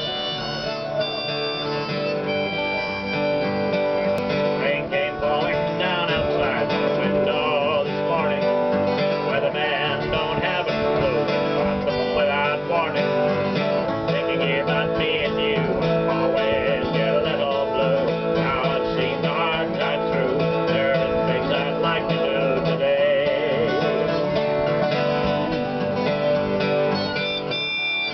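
Two acoustic guitars strumming and picking a country-style tune, with a harmonica wavering over them in a neck rack, played live without singing.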